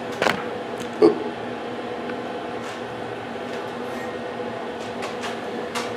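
Two short metal knocks, about a quarter second and a second in, as things are handled at a Yoder YS640 pellet smoker, over a steady hum.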